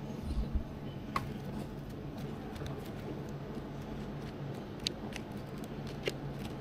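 Supermarket background: a steady low hum with a few light clicks and taps, as of produce and a shopping trolley being handled.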